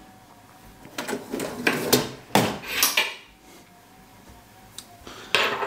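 Kitchenware being handled: dishes and utensils clink and knock in a quick run for about two seconds, then clatter briefly again near the end.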